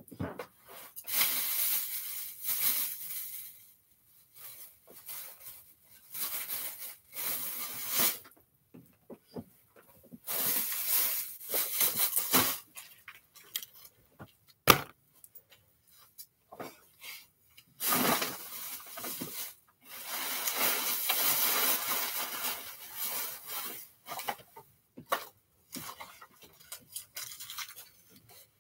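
Plastic shopping bag and packaging rustling and crinkling as they are handled, in repeated bursts of one to three seconds with quiet gaps between, and a single sharp click about halfway through.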